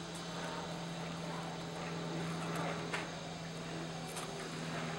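A steady, unchanging engine drone over open-air background noise.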